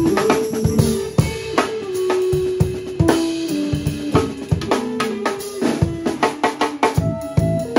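A live funk band playing an improvised groove: a drum kit keeps a busy beat of bass drum, snare and rim hits, with bass and a held melody line that steps between long notes over it.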